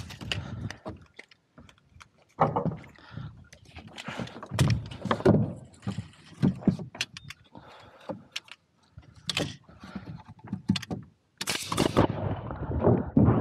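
Lumber being handled and knocked against an OSB roof deck, irregular knocks and footsteps on the sheathing. Near the end a pneumatic framing nailer fires a short burst as doubled boards are nailed along the roof edge.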